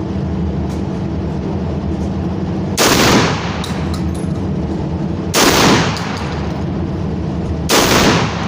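Three gunshots, each with a short echoing tail, spaced about two and a half seconds apart, over a steady low hum.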